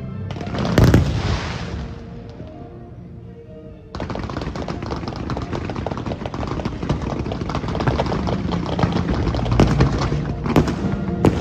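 Aerial fireworks: one loud burst about a second in, then from about four seconds in a dense, rapid crackle of many small reports, with a few louder bangs near the end. Music plays underneath.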